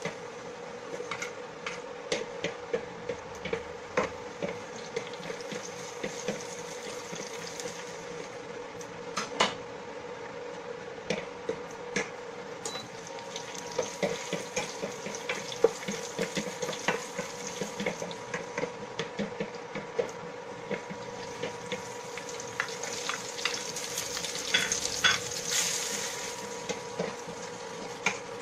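Garlic, onion and tomatoes sautéing in oil in a stainless steel pan: a steady sizzle, with a wooden spatula stirring and scraping and often tapping against the pan. The sizzle grows louder for a couple of seconds near the end.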